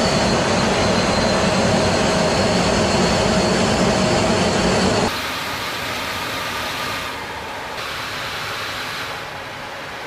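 Steady in-flight cockpit noise of a B-52 bomber, from its eight jet engines and the airflow, with a faint steady whine. About five seconds in it drops to a quieter, thinner hiss.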